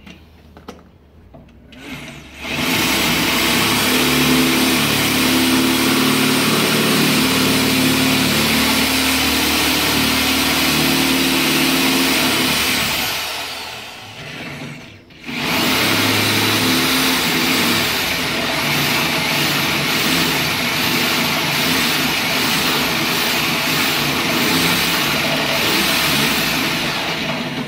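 Handheld electric drill boring through the truck's steel frame in two long runs, with a short break near the middle.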